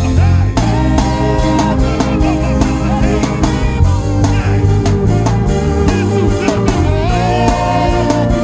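Loud live worship band music with a heavy bass line and a wavering melody over it.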